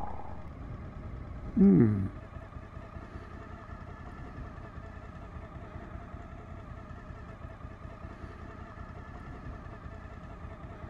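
Suzuki V-Strom 1000's V-twin engine running steadily, heard from the rider's position on the motorcycle. About a second and a half in, a short loud sound falls steeply in pitch.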